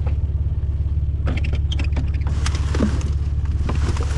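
Plastic garbage bags rustling as they are pulled and shifted inside a wheeled trash bin, in short scratchy bursts from about a second in and more densely near the end, over a steady low rumble.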